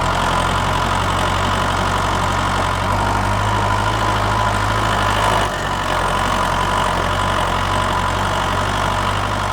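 An engine idling steadily; its low note shifts slightly about three seconds in and again about halfway through.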